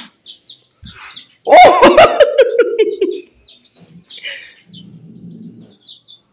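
Chicks peeping over and over in short, high, downward chirps. About a second and a half in, a loud drawn-out cry that falls in pitch drowns them for about a second and a half, and near the end a low rough sound comes twice.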